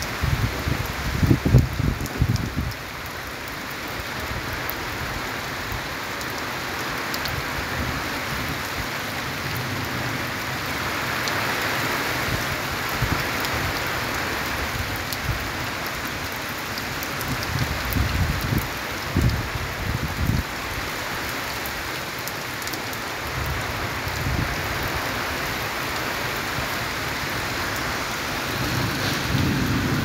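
Steady heavy rain in a storm, with bursts of low rumbling from thunder or wind gusts near the start, a little past halfway, and again at the end.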